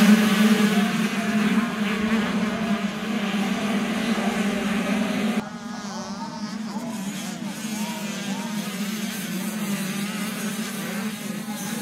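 A pack of 85cc two-stroke motocross bikes racing, several engines revving up and down at once. About five seconds in the sound drops abruptly to a quieter, more distant pack, their engine pitches still rising and falling.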